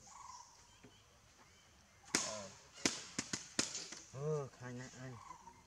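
Five sharp cracks over about a second and a half, from about two seconds in, followed by a low voice talking briefly.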